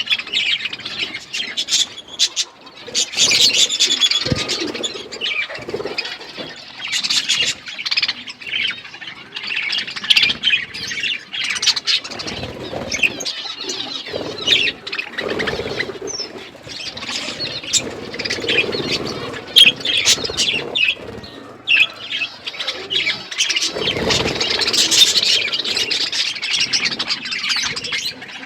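A flock of budgerigars chattering and chirping continuously, with many overlapping warbles and squawks, with short flurries of wing flapping.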